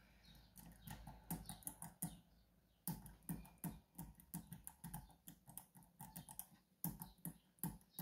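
Faint, irregular small metal clicks and taps of a hook pick working the key pins of a Medeco Biaxial cam lock, lifting and rotating them against the tension wrench, several a second, with a brief pause a little over two seconds in.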